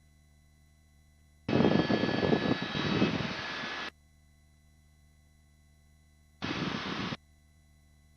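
Helicopter cabin noise coming through the intercom in two abrupt bursts as the voice-activated mic gate opens and shuts: about two and a half seconds starting about a second and a half in, then a brief one near the end. Between them only a faint electronic hum.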